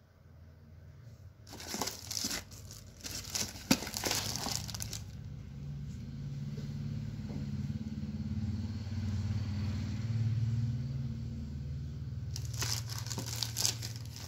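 Clear plastic packaging crinkling in two bouts as it is handled, the first a few seconds in and the second near the end. Between them a low rumble swells and fades.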